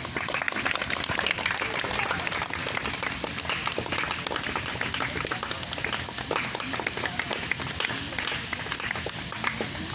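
An audience clapping steadily, many hands at once, breaking out right at the start.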